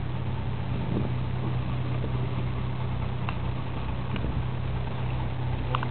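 A steady, even low hum, with a faint click about three seconds in and another near the end.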